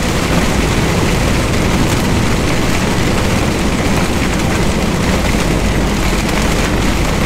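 Heavy rain pelting a MAN TGX semi-truck's cab and windscreen while it drives, mixed with tyres hissing through water on the road, as a steady, loud rushing noise heard from inside the cab.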